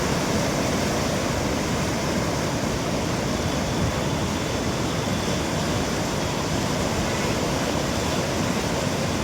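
Godavari river in flood, its fast, swollen water rushing in a steady, even noise.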